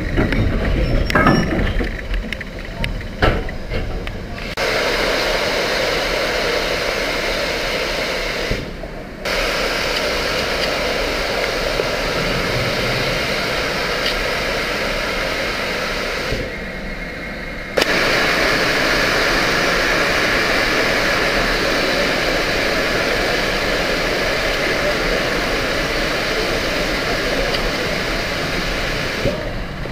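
Steam locomotive venting steam in a loud, steady hiss with no exhaust beat; the hiss cuts off sharply twice and starts again each time. A few knocks and clanks come in the first seconds.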